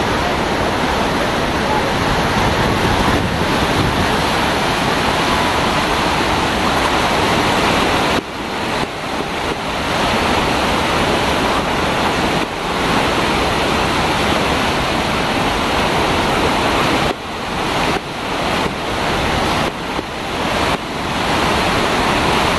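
Steady, loud rush of white water from Bow Falls, a broad, low waterfall and rapids on the Bow River. The roar dips briefly in level several times in the second half.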